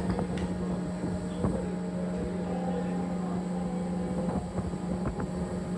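Tender boat's engine running steadily: a constant low hum with a strong, unchanging drone, with faint voices underneath.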